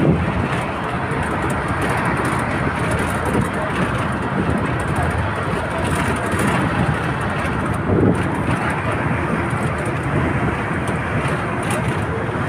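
Steady road and engine noise from inside a moving bus as it drives through a road tunnel, with a brief louder swell about eight seconds in.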